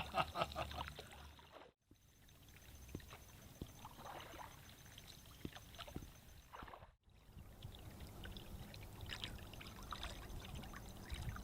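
Kayak paddle strokes in lake water: faint splashing and trickling as the blades dip and drip. The sound cuts out briefly twice.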